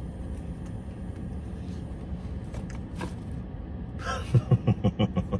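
Steady low rumble of a car cabin with the engine running, with a few small clicks and a rustle. About four seconds in, a man's voice starts in quick, evenly spaced short pulses, several a second.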